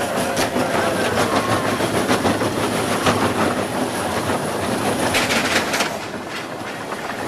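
Walt Disney World Railroad train running along its track, wheels clicking over the rail joints, with a brief hiss about five seconds in.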